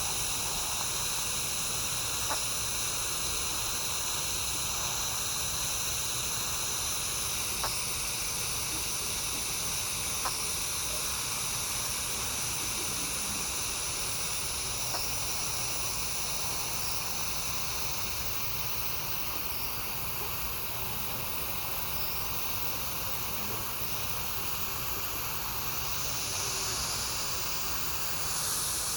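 Steady hiss with several faint high whining tones held underneath, and a few faint short clicks a few seconds apart.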